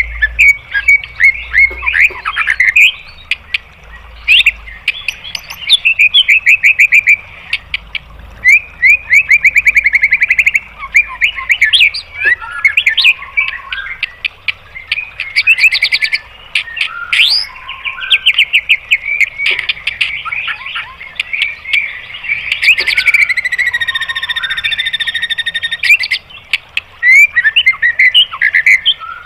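White-rumped shama (murai batu) singing a loud, varied song of very fast rattling trills and sharp whistled notes, the rapid-fire 'tembakan' phrasing. About three quarters of the way through, a harsh, buzzy note is held for about three seconds.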